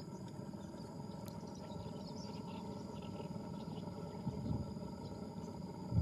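Outdoor ambience: a steady high insect drone over a low rumbling noise that surges twice near the end, with scattered faint short chirps.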